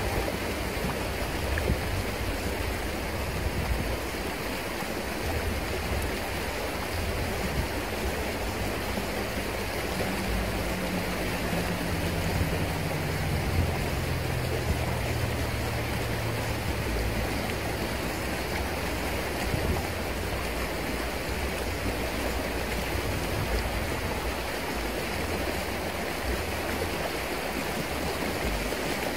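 Fast, shallow river riffle rushing steadily, with the current breaking around a wader's legs.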